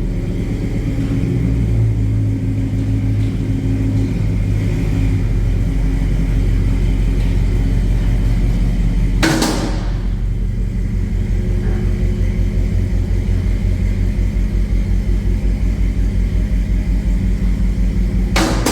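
Chevrolet Tahoe's V8 idling through a freshly repaired custom exhaust, a steady deep rumble with an even pulse. Two short sharp noises cut in, about halfway through and near the end.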